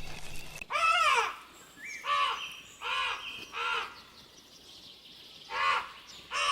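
An animal calling six times in short, separate calls, each rising and falling in pitch, with faint chirps higher up.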